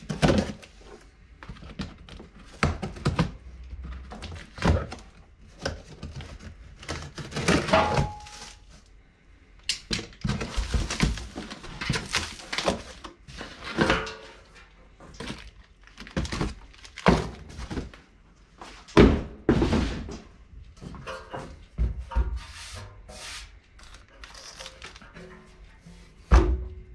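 A cardboard box being opened and unpacked: packing tape slit and torn, and cardboard flaps and inserts rustling and scraping. Repeated thunks come as a bare-metal motorcycle fuel tank is lifted out and set down on the workbench.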